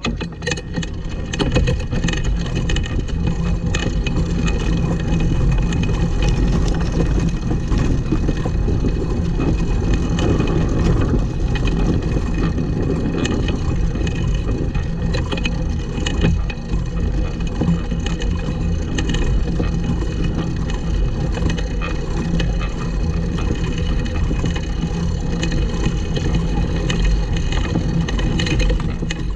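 Pedal go-kart rolling over a bumpy grass lawn: a steady rumble and rattle of the wheels and frame carried straight into a kart-mounted camera, with frequent small knocks.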